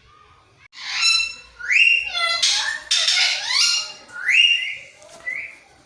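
A pet parrot giving a rapid series of loud squawks, many sliding up in pitch, starting about a second in and growing fainter near the end.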